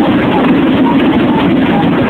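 Crowd of spectators chattering, many voices blending into a steady hubbub.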